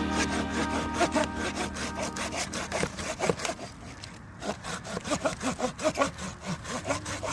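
A Corona RazorTooth RS 7265 folding pruning saw cutting through a bush branch by hand in quick back-and-forth strokes. The strokes pause briefly about four seconds in, then resume.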